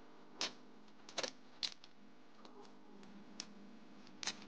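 Faint, irregular light clicks and crackles, about six in all, from adhesive tape being peeled off a laptop's Wi-Fi antenna cables and the cables being handled with gloved fingers.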